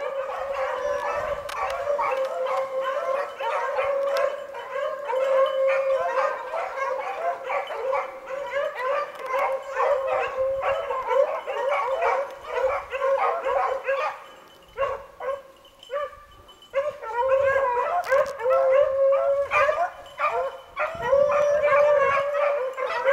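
A pack of beagles baying in full cry while running a rabbit's track, many voices overlapping. The chorus dies down briefly about fifteen seconds in, then picks up again.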